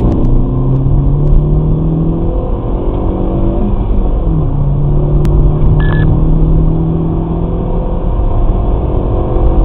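Kia Forte Koup's 1.6-litre GDI four-cylinder engine on stock intake and exhaust, running hard under acceleration from inside the cabin, with a steady rumble of road and wind noise. The engine note dips briefly about four seconds in, and a short beep sounds around six seconds.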